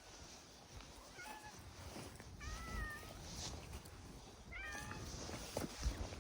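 A domestic cat meowing a few times in short calls, the clearest about two and a half and four and a half seconds in, with a couple of faint low thumps near the end.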